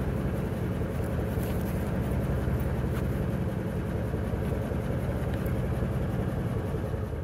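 SACM MGO V12 diesel engine of a shunting locomotive running steadily with a deep, even rumble.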